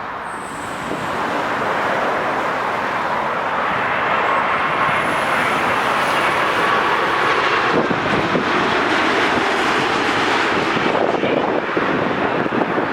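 Boeing 787 jet engines on landing, a steady rushing roar that grows louder over the first couple of seconds. A faint high whine rises in pitch about four seconds in and then holds.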